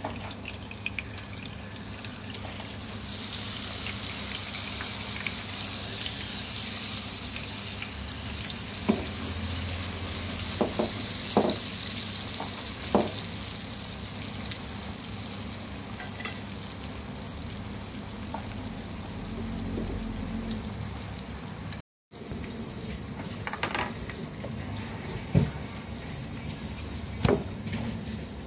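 A cha-om and egg omelette frying in hot oil in a pan: a steady sizzle, loudest in the first half, with a few sharp clicks scattered through.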